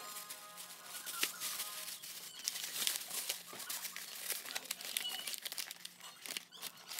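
Paper mailer and tissue paper crinkling and rustling by hand as the package is opened and a tissue-wrapped item is pulled out, with irregular crackles throughout.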